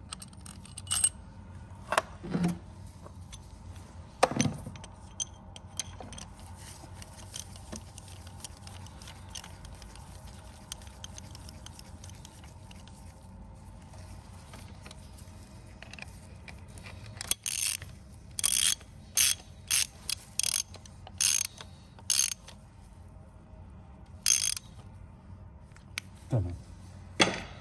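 Hand tools clicking and clinking on metal as a fuel injector is fitted into a Mercedes 651 diesel engine. A few separate clicks come early, then about a dozen sharp clicks in quick succession in the second half, over a faint steady hum.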